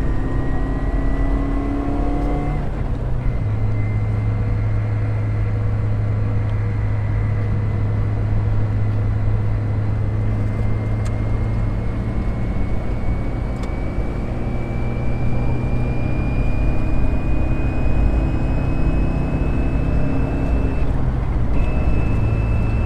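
Inside a current Lada Niva at speed: steady engine and road noise with a thin, high transfer-case gear whine that slowly rises in pitch as the car gathers speed, breaking off briefly near the end.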